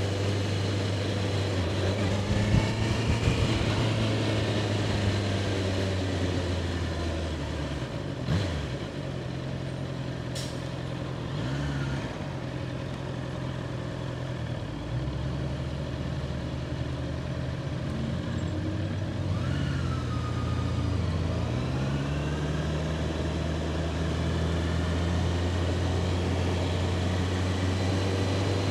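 2021 Honda CBR650R's inline-four engine running under way at a steady pitch, which falls and climbs again a few times as the bike eases off and accelerates. Wind noise on the microphone runs through it.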